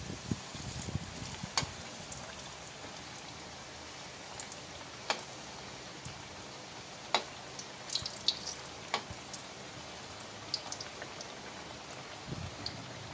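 Banana pieces frying in hot oil in a metal wok: a steady sizzle with scattered sharp pops and crackles.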